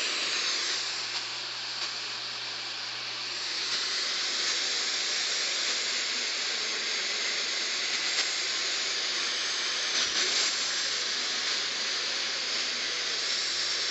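Steady radio static hiss from a receiver with no transmission coming through, with a faint low hum beneath it. It dips a little about a second in, comes back up after a few seconds, and has a few faint crackles about ten seconds in.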